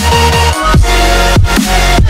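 Background electronic music, with deep bass notes that slide downward in pitch several times over a steady beat.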